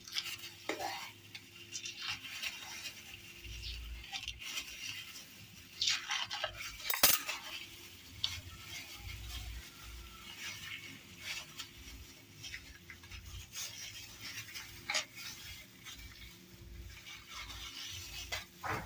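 Kitchen handling noises as raw pork ribs are worked over at the counter: light scraping, rubbing and clinks of utensils and dishware, with one sharp clink about seven seconds in, over a faint steady hum.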